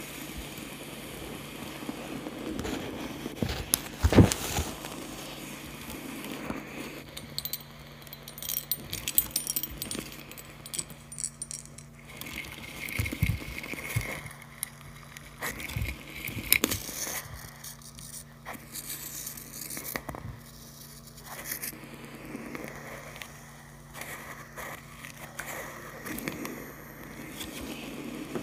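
Fingernails tapping and scratching on a pair of small plastic computer speakers as an ASMR trigger: irregular taps and light scrapes, with a louder knock about four seconds in.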